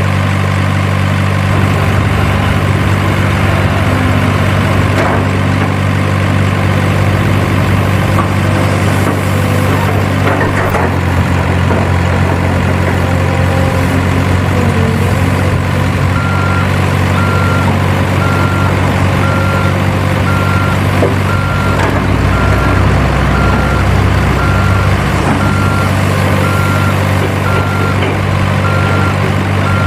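Simulated heavy diesel truck engine sound running steadily at idle, its note changing about 11 seconds in. From about halfway a reversing alarm beeps about once a second.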